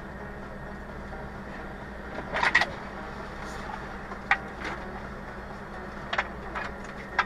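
Steady low hum of an idling fire engine heard from inside its cab, with a few short sharp clicks and knocks, the loudest a double knock about two and a half seconds in.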